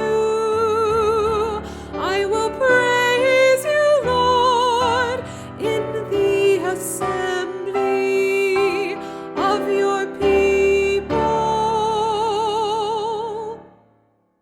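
Closing music of a sung responsorial psalm: voices holding long notes with vibrato over piano accompaniment, the last chord fading to silence near the end.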